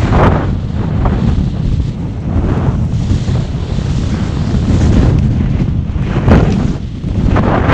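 Wind buffeting the microphone: a heavy, steady low rumble broken by a few louder gusts, about a quarter of a second in, around two and a half seconds, just after six seconds and near the end.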